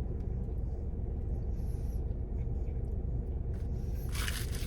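Steady low rumble inside a car's cabin, with a short rustle about four seconds in.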